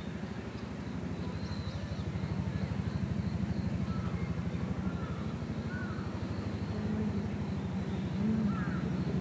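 A low engine drone with a rapid, even pulse, growing louder over the first three seconds and then holding steady.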